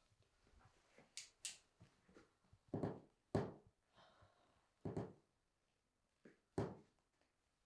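Slow, creeping footsteps on a hard floor: about five soft thuds spaced a second or more apart, with two faint high clicks about a second in.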